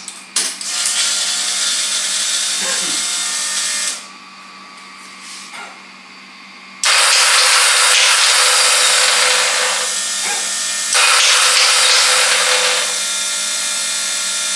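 Electric starter motor on a Ducati 998 engine whirring in three bursts of a few seconds each, spinning without engaging: a definite wrongness in the sprag clutch and flywheel it drives.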